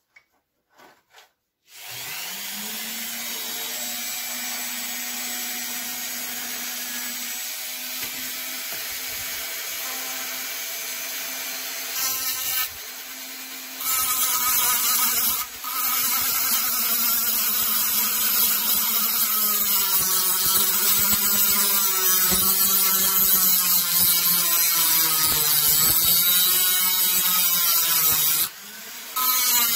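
A handheld rotary tool with a small round abrasive brush starts up about two seconds in, after a few faint clicks, and runs with a steady whine. It scrubs chipped paint and rust off the metal cab of a Tonka toy, growing louder and rougher once it is pressed against the metal about fourteen seconds in. There are a few brief dips where it lifts off.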